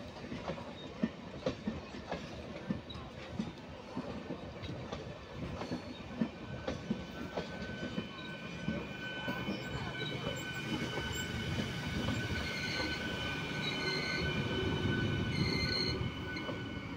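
Freight train wagons rolling past, their wheels knocking over rail joints. From about eight seconds in, a high-pitched wheel squeal sets in and grows louder.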